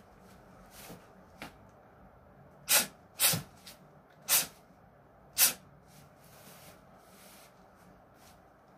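A shadowboxer's sharp, hissed exhales with his punches. A couple of faint ones come early, then four loud short hisses between about three and six seconds in.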